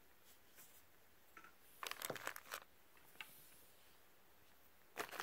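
Clear plastic bags crinkling as machined aluminium parts are handled, in two short bursts of crackling, about two seconds in and again near the end.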